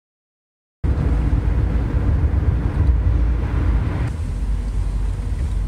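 Steady road and engine rumble inside a moving car's cabin, cutting in about a second in after a moment of dead silence; the hiss eases slightly a few seconds later.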